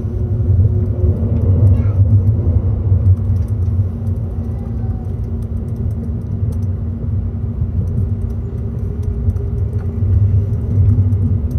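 Limited express Azusa electric train running at speed, heard inside the passenger car: a steady low rumble of the wheels on the rails with a faint hum above it. It swells a little in the first few seconds and again near the end.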